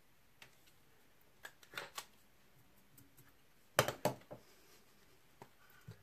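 Small clicks and knocks of fly-tying tools being handled, with a cluster of louder sharp clacks about four seconds in as the metal rotary vise head is turned over.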